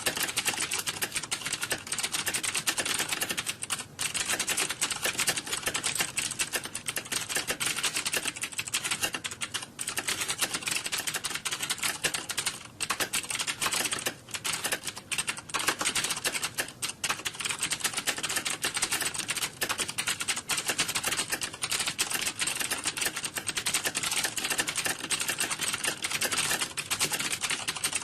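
Typing on computer keyboards: a dense, unbroken clatter of key clicks at a steady level.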